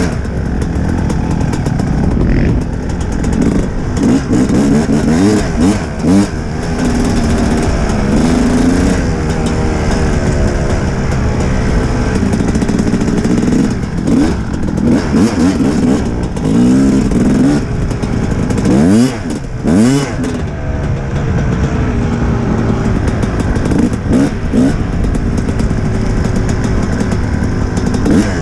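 Kawasaki dirt bike engine running under the rider, its pitch rising and falling with the throttle and gear changes. It gives a couple of quick, sharp revs about two-thirds of the way through.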